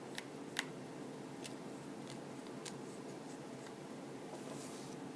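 Light, scattered clicks of a small precision screwdriver and tiny screws against an iPhone 4's metal frame, the loudest under a second in, with a soft brushing hiss near the end over a steady low hum.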